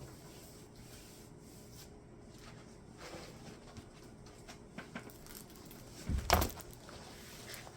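Faint rustling and small clicks of objects being handled on a tabletop, with one louder thump about six seconds in.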